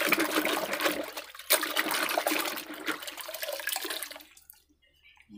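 Soapy water sloshing and splashing in a basin as a hand scrubs plastic toy vehicles under the foam. The sloshing stops about four seconds in.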